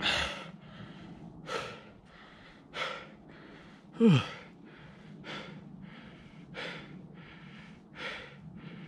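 A runner gasping for breath after hard uphill running intervals: heavy breaths about every second and a quarter, with a loud groan falling in pitch about four seconds in.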